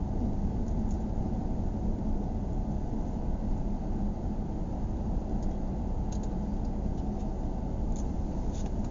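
Steady low rumble of a car's engine and tyres on the road, heard from inside the cabin while driving, with a few faint clicks in the second half.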